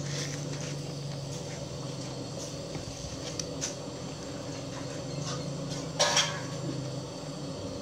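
Metal spoon lightly clicking and scraping on a stainless steel tray as it picks boiled fish flesh off the bones, with one louder clink about six seconds in. A steady low hum runs underneath.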